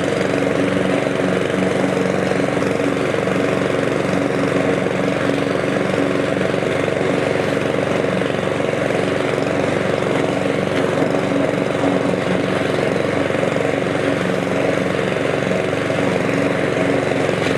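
A Cobra self-propelled petrol rotary lawn mower with a 173cc engine runs steadily under load while cutting grass in mulching mode, with the deck set to its lowest cutting height.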